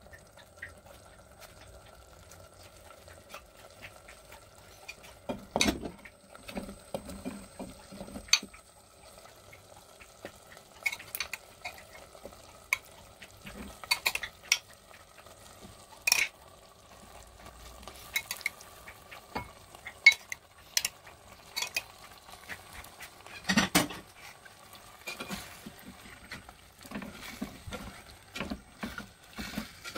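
A spatula stirring and scraping curry in a clay pot, with frequent clacks against the pot and knocks as potato chunks and chicken pieces go in, over a gentle sizzle of the simmering onion masala. A faint steady hum runs underneath.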